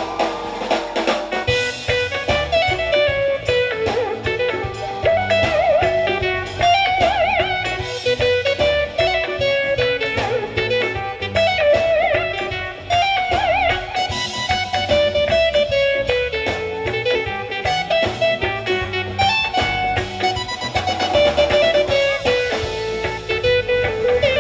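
Live band playing an instrumental passage: a lead guitar plays a winding melody over bass and a steady beat. The bass comes in about a second and a half in.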